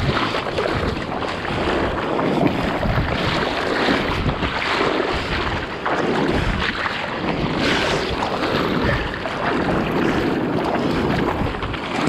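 Ocean surf and rushing seawater around an action camera, with wind buffeting the microphone.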